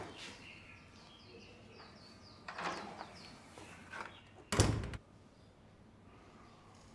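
A panelled wooden door being opened and then shut with a loud thud about four and a half seconds in, with faint bird chirps behind.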